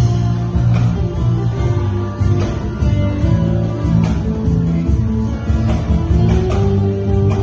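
Music led by guitar, playing steadily.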